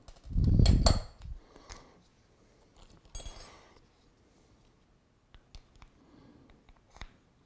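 Small RC landing-gear parts handled on a stone worktop: a loud bump and clatter about half a second in, a short crinkly rustle a little after three seconds, then faint clicks and clinks as a foam wheel and wheel collar are fitted onto the nose-gear axle.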